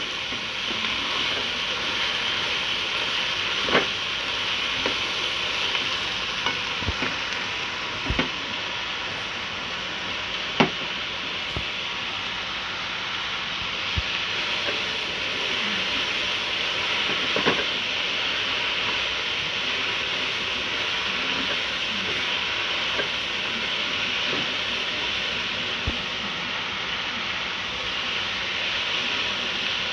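Cabbage, onion and chicken sizzling steadily as they are stir-fried in oil in a non-stick wok over a high gas flame, with a spatula stirring and now and then knocking sharply against the pan.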